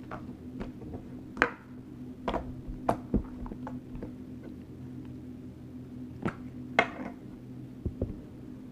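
Slime being squished and worked by hand: a string of separate short, sticky clicks and pops over a steady low hum.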